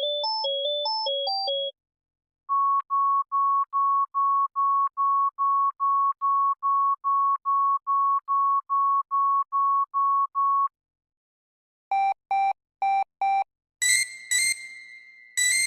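A sequence of synthesized phone alert tones, of the kind played for low or empty battery. A short electronic tune ends, then about twenty evenly spaced single-pitch beeps come at about three a second. Four quick buzzy beeps follow, then two pairs of bright ringing chimes near the end.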